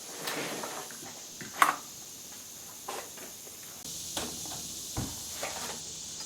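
Scattered light clicks and knocks, with one sharper, louder knock about one and a half seconds in.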